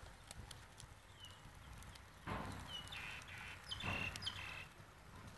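A few short bird chirps over faint outdoor background, with two brief bursts of rushing, hissing noise about two and four seconds in.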